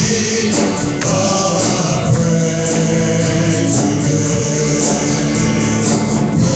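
Live gospel worship music in a church: a band playing with voices singing along and a tambourine shaking, picked up by a phone microphone at the back of the sanctuary.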